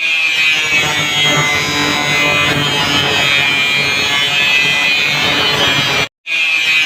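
Angle grinder cutting and grinding metal, a loud steady whine with a gritty hiss. It cuts out completely for a moment about six seconds in and then starts again.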